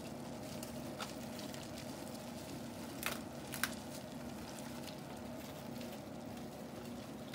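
Faint rustling and crackling of clear plastic shrink-wrap being peeled off a frozen pizza, with two sharper crackles a little after three seconds in.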